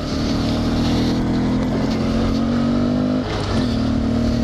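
Single-cylinder dual-sport motorcycle engine running at a steady speed under way on a dirt trail. Its pitch dips briefly about three seconds in and comes back up. Wind rush sits over the engine.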